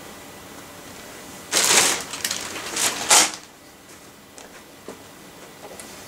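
Rattling clatter of hand tools and small metal parts being handled and picked up: a loud burst about one and a half seconds in, two more shortly after, then a few light clicks.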